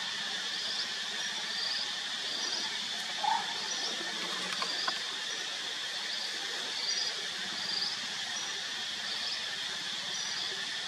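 Outdoor forest ambience: a steady high-pitched insect drone, with a short high chirp repeating about once a second and a few faint knocks near the middle.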